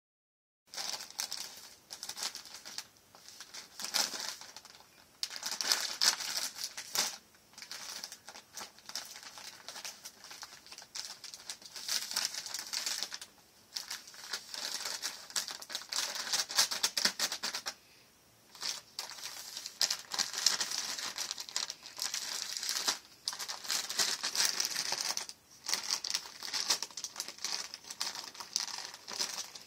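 A plastic snack bag crinkling and rustling in irregular bursts as a small dog bites, noses and tosses it, with a few brief pauses.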